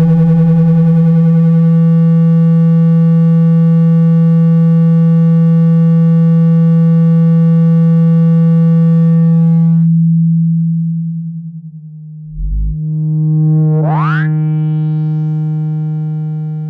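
Speaker-cleaning tone for ejecting water and dust from a phone speaker: a loud, low, steady electronic tone full of overtones. It fades out about ten seconds in, a brief low thump follows, and the tone comes back with a quick rising sweep.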